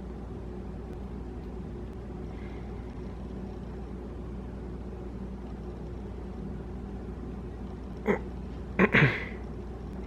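Steady low hum of room noise. Near the end comes a short sharp sound, then a brief vocal cry with falling pitch, typical of a ticklish man reacting to a budgie nibbling and clawing at his ear.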